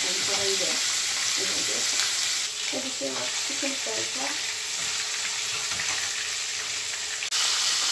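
Spice-coated marinated chicken pieces frying in hot oil in a saucepan: a steady, dense sizzle, a little quieter from about a third of the way in and louder again near the end.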